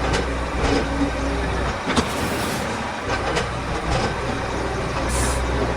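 Miniature model construction machinery running with a steady mechanical whirr and low hum, broken by scattered clicks and knocks.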